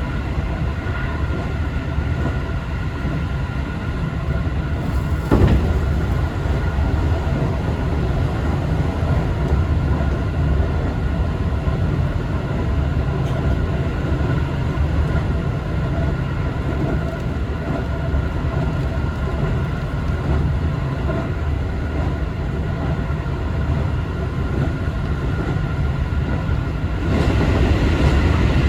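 Keio Liner commuter train running at speed, heard from inside the carriage: a continuous rumble of wheels on rail with a steady hum above it. There is a single knock about five seconds in, and the noise grows louder near the end.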